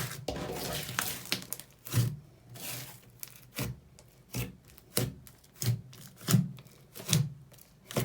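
Slime being kneaded with a crackly rustle, then pressed and squished by hand in a steady series of short squelches, about one every 0.7 seconds.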